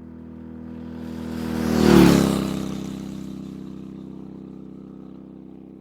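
A motor vehicle driving past: its engine swells to a peak about two seconds in, drops in pitch as it passes, then fades away.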